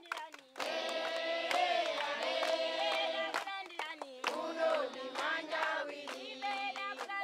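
A group of voices singing a song in chorus, holding long notes, with sharp percussive strokes throughout. It grows louder about half a second in.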